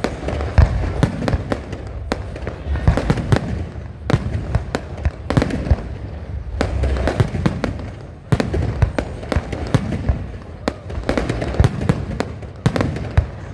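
Aerial fireworks going off in quick succession: a dense run of sharp bangs and crackles, several a second, over continuous low booms.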